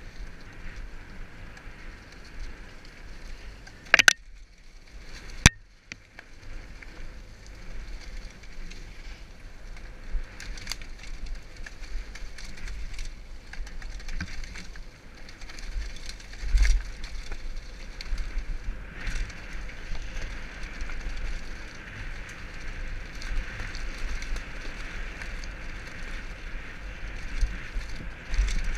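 Mountain bike ridden fast downhill over grass and a leaf-covered dirt trail: tyre noise on the ground, with rattles and clicks from the bike and wind rumbling on the microphone. Two sharp knocks come about four and five and a half seconds in, and the tyre hiss grows louder in the second half.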